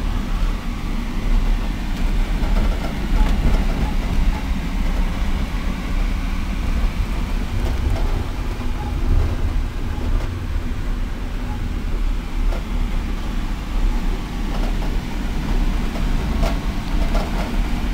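Interior of a moving passenger train carriage: a steady low rumble of the wheels on the track, with a few faint clicks and rattles.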